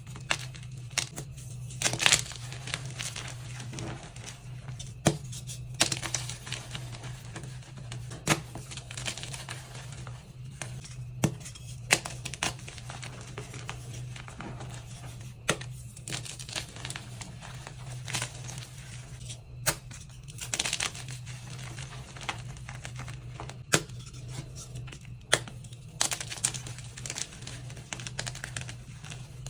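Dyed gym chalk chunks and reformed blocks being crushed and crumbled: a steady crunching broken by sharp cracks every second or two, over a low steady hum.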